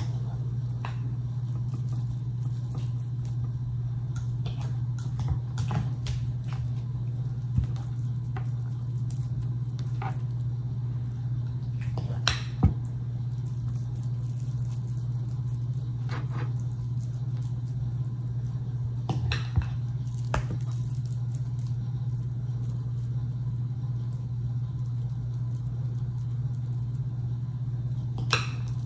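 A metal spoon scooping mashed potatoes from a glass bowl and dropping them onto plates, with a few light taps and clinks of the spoon against the glass, over a steady low hum.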